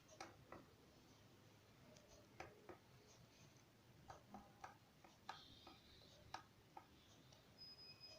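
Near silence with faint, scattered clicks and taps, about a dozen in all, and a faint high beep that starts near the end.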